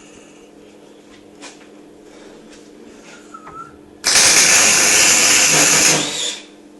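MIG welder arc crackling steadily for about two seconds while a weld is laid, starting about four seconds in, over a steady low hum.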